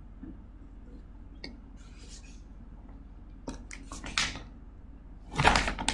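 Computer keyboard and mouse: a few scattered clicks and key taps over a faint room hum, with a louder short burst of taps near the end.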